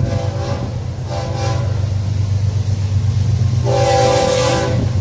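Florida East Coast Railway freight locomotives (GE ES44C4 diesels) approaching a grade crossing, the lead unit sounding its air horn: short blasts in the first second and a half, then a longer blast about four seconds in. A steady low diesel engine rumble runs underneath.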